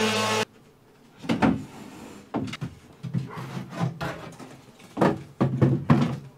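Small electric sander running, then cutting off abruptly about half a second in. It is followed by a series of wooden knocks, bumps and scrapes as a plywood panel is handled and moved against the wooden bed frame.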